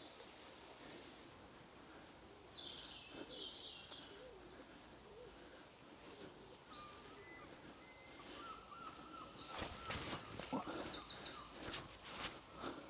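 Woodland songbirds singing faintly, with short repeated-note trills from a few birds overlapping in the second half. Near the end comes a run of soft clicks and rustles.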